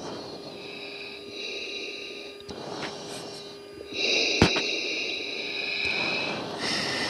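Breathing into an oxygen-mask microphone over the live cockpit intercom of an F-16, heard as hissy breaths that come and go over a steady hum. A sharp click comes about four and a half seconds in.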